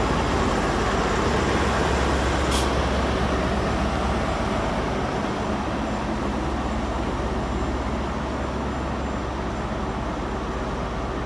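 HST Class 43 power car diesel engines running at a steady rumble while the train stands at the platform, with one short high hiss of air about two and a half seconds in.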